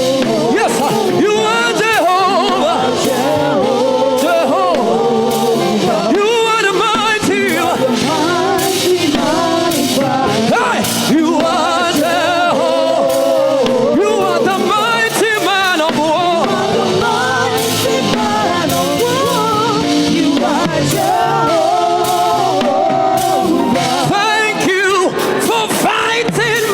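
Live gospel praise music: a lead singer over a band, with regular drum hits.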